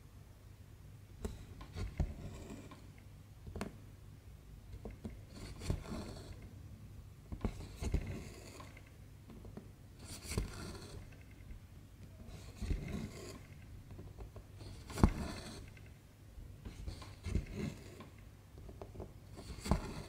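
Silk embroidery thread pulled through cross-stitch fabric by hand, a short rasping swish with each stitch, about eight times at an unhurried pace, with a few light ticks of the needle between pulls.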